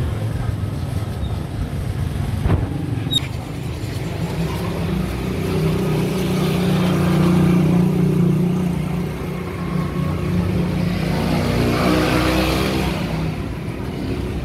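A motor vehicle's engine running close by, building from about four seconds in and rising in pitch near the end as it accelerates, then fading. A sharp knock sounds about two and a half seconds in.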